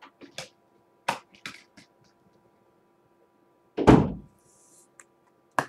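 Trading-card foil packs and cards being handled: a few short crinkles and clicks, then one heavy thump on the table about four seconds in, with more clicks near the end.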